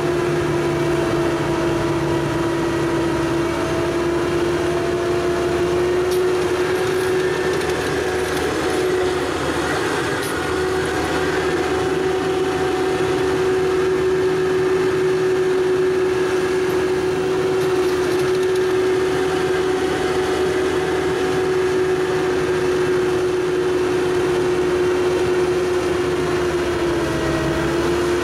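ASV RC100 compact track loader's diesel engine running at steady high revs, driving an Erskine ES2410XL snowblower attachment through a snowbank, with a steady whine over the engine; the pitch dips briefly near the end.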